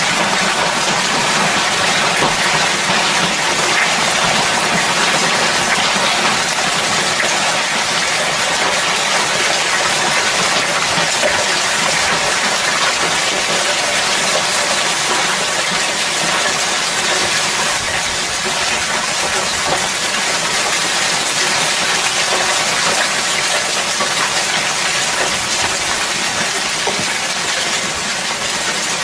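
Hailstorm: hail and rain pelting down steadily, a dense loud hiss of countless small impacts.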